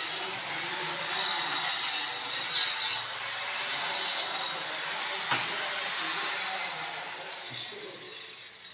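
Handheld power cutter cutting a groove into a masonry wall for conduit: an abrasive grinding with a high motor whine, coming in spells as the blade bites. About six seconds in the motor is switched off, and its whine falls as it winds down.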